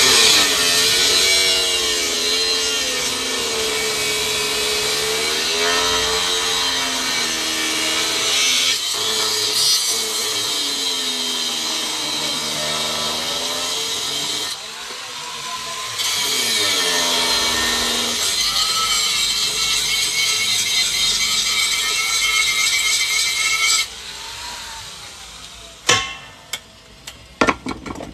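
Handheld angle grinder grinding a black metal frying pan, throwing sparks. The motor's whine wavers in pitch as the disc bites into the metal, eases briefly midway, and stops a few seconds before the end. A few sharp knocks follow as the pan is set down on the counter.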